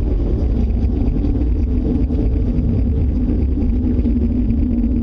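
Loud, steady low rumble with a low hum running through it, unchanging throughout. The people recording took it for an approaching tornado, but its source is unidentified.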